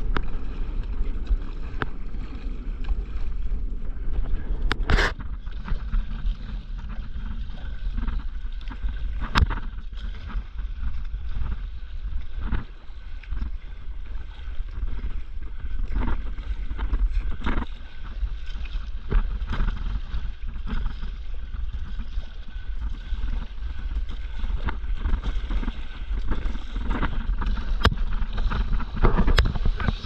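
Sea water sloshing and splashing around a stand-up paddleboard, with wind buffeting the microphone and scattered short splashes. Near the end the hiss of spray grows louder as the board rides a wave.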